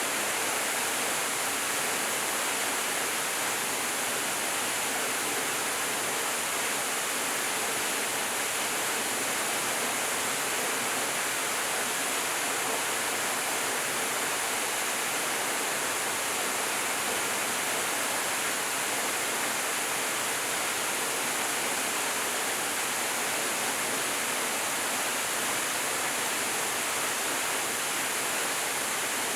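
Small stream's flowing water: a steady, even rush with a bright hiss.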